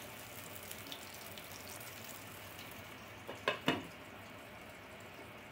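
Uthappam batter sizzling faintly with fine crackles in an oiled nonstick pan. A few quick clinks come about three and a half seconds in as a glass lid is set over the pan to let it cook covered.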